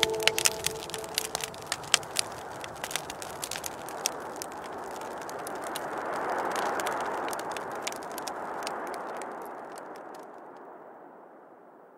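Small campfire crackling with irregular sharp pops over a soft rushing night ambience that swells in the middle and fades away near the end.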